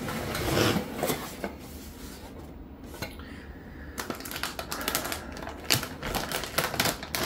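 Cardboard motherboard box being opened and handled, then from about four seconds in a rapid, dense crackling of packaging as hands dig into the box to pull out the snugly packed board.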